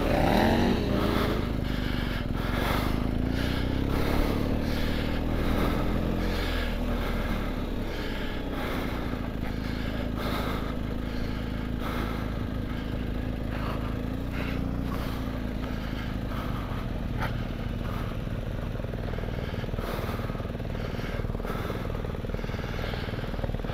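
BMW R 1250 GS Adventure's boxer-twin engine running as the bike rides a gravel track. The engine note rises over the first few seconds, then holds fairly steady.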